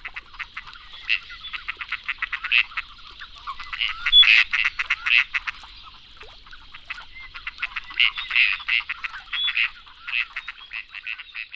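Gadwalls calling: a quick, continuous chatter of short, croaking duck calls and quacks, louder about four seconds and eight seconds in.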